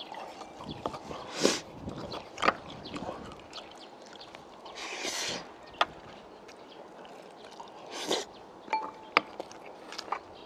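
Close-up mukbang eating sounds: a man chewing braised pork ribs and rice, with scattered clicks of chopsticks against the bowl and three louder slurps.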